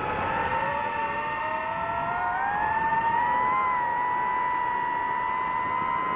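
DJI FPV drone's electric motors and propellers whining, several tones together whose pitch rises and falls as the throttle changes. The pitch climbs back from a dip at the start, rises again about two seconds in, then holds fairly steady.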